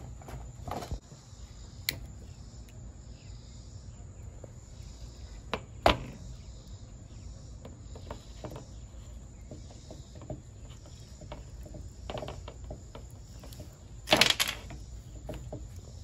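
Scattered clicks and knocks of cordless impact driver parts being handled during disassembly, the loudest a sharp knock about six seconds in and a short clatter near the end, over crickets chirping steadily.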